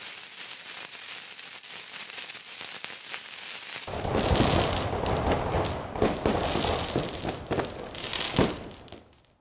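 Fireworks: a steady hiss of sparks, then, about four seconds in, louder crackling with bangs that dies away just before the end.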